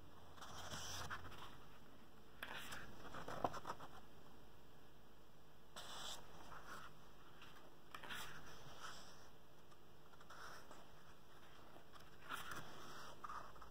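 Paper rustling as the pages of a booklet are turned and handled, about six separate short rustles.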